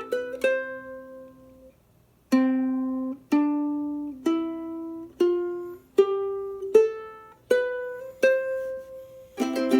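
A 1960s Kamaka Gold Label ukulele being played. A few plucked notes ring out and fade, then after a short pause single notes are plucked one at a time, about once a second, stepping upward in pitch. A quick flurry of notes comes near the end.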